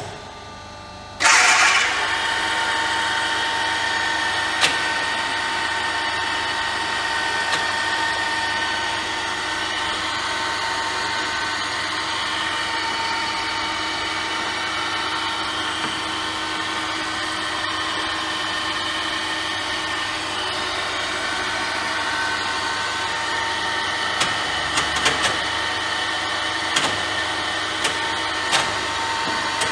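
A 1982 Deckel KF3S copier milling machine is switched on with a click and starts up about a second in. It then runs steadily with a whine, and a few light clicks come near the end.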